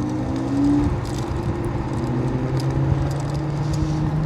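Steady low motor hum with a second, higher tone that shifts slightly in pitch, over a continuous rush of road and wind noise.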